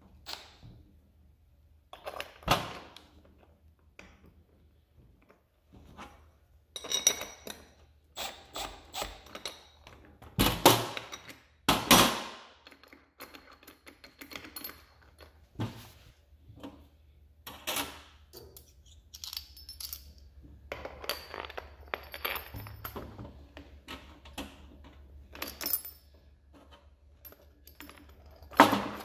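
Metal hardware and hand tools clinking and knocking on a steel tool-cart tray as small pneumatic wheels are handled and fitted onto their axle bolts. It is a scatter of sharp clinks and thuds, with some brief metallic ringing, loudest twice around ten to twelve seconds in.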